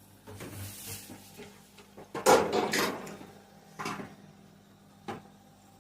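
Kitchen handling sounds: a short hiss, then a loud clatter about two seconds in and two single knocks later, like cookware or a cupboard being handled.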